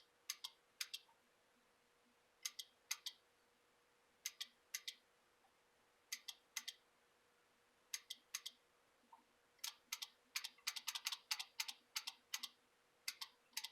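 Sharp clicks in pairs and small groups, speeding up into a quick run of clicks about ten to twelve seconds in: a 12-volt scooter's control buttons being pressed and its relay clicking in and out as the repaired board is tested.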